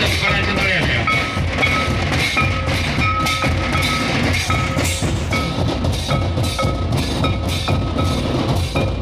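Santali dance drums beating a fast, steady rhythm, with a short high note repeating about twice a second above the drumming.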